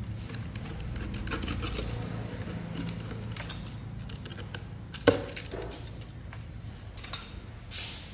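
Scattered light clinks and taps of hard objects being handled, with one sharp knock about five seconds in and a short hiss near the end.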